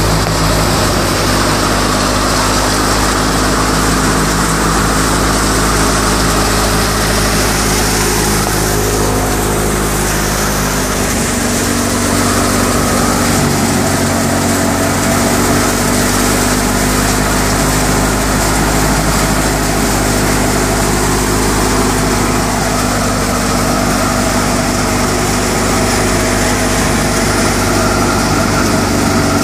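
Tractor diesel engine running steadily under load, driving a threshing machine whose drum and fans whir along with it. The engine note shifts slightly about eleven seconds in.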